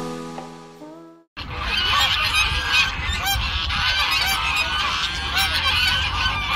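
A large flock of geese honking, with many overlapping calls. Guitar music fades out over the first second, and the honking starts abruptly just over a second in.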